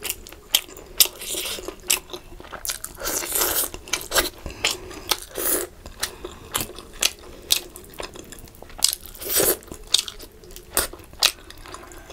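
Eating sounds: chewing, biting and crunching on pieces of fish, with many sharp wet mouth clicks and a few longer noisy smacking bursts.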